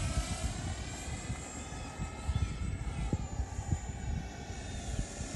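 Eachine F-18 RC jet's 50 mm electric ducted fan whining in flight, its pitch sagging slightly and then rising again near the end as the jet passes.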